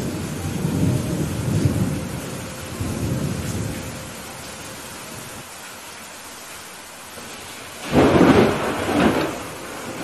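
Heavy rain falling steadily with thunder: a low rolling rumble over the first few seconds, then a sharp, loud thunderclap about eight seconds in, followed by a second crack a second later.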